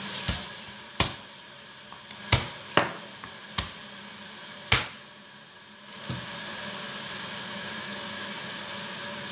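Kitchen knife smacking garlic cloves against a plastic cutting board: about six sharp knocks over the first five seconds, then only a steady background hum.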